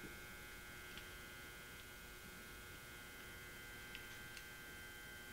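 Faint steady electrical hum, with a few soft clicks about a second in and again around four seconds in.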